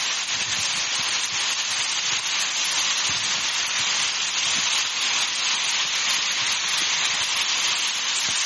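Hail mixed with heavy rain pelting a car's roof, windshield and hood and the ground around it: a steady, dense hiss of small hailstones striking.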